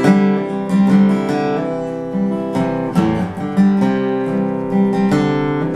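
Guitar strumming the slow chords of a song's introduction, one stroke every half second to a second.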